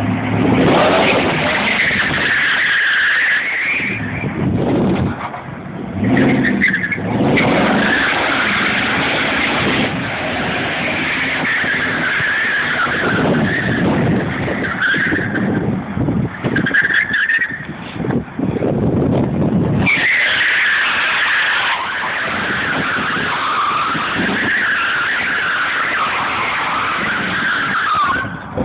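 Ford Lightning pickup's tyres squealing on pavement through sustained drifts and doughnuts, the screech wavering in pitch, in long stretches broken by a few short lulls.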